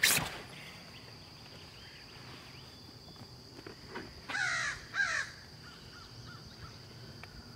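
A sharp click at the very start, then two short crow caws about four and a half and five seconds in.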